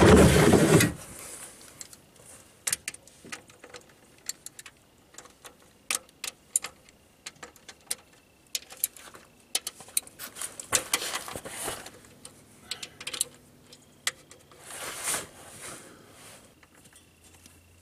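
A loud rustling scrape in the first second, then scattered sharp metallic clicks and clinks of a ratchet, socket and extension loosening the transmission pan bolts.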